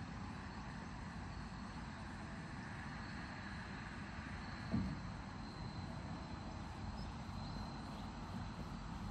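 Lakeside outdoor ambience: a steady low rumble with faint, steady insect trilling, and a single soft thump about five seconds in.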